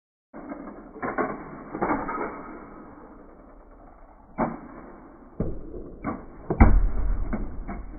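Small die-cast toy car clattering and knocking on a hard surface as it is rolled over in a crash test, a series of separate knocks with the heaviest thump about six and a half seconds in.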